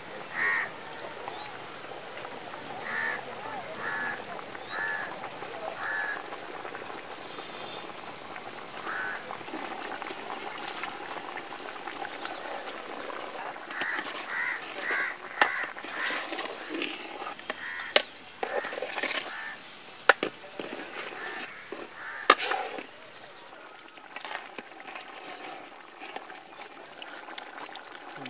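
Birds calling in short, harsh calls about once a second through the first half, with faint high chirps. From about halfway on, a spatula knocks and scrapes against the aluminium cooking pot in a string of sharp clicks.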